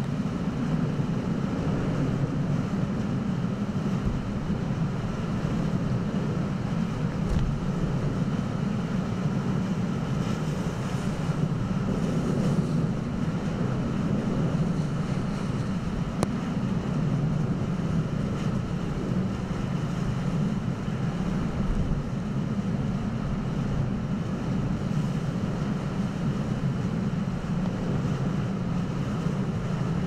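Typhoon wind buffeting the microphone in a steady low rumble, with surf breaking against a concrete tetrapod breakwater.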